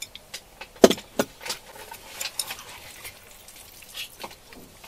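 Eating sounds: a utensil clicking and knocking against a bowl as food is stirred and eaten, with a sharp knock about a second in and a few lighter clicks after it.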